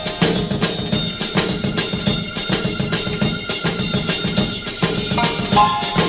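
Instrumental passage of a 1960s rhythm-and-blues rock recording: a driving drum-kit beat with bass drum and snare over sustained band chords, with no singing.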